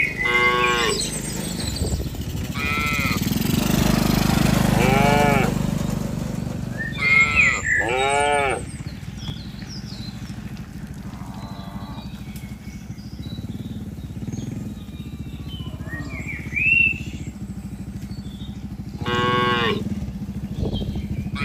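Cattle in a herd mooing: several separate calls, clustered in the first eight seconds, then one more near the end.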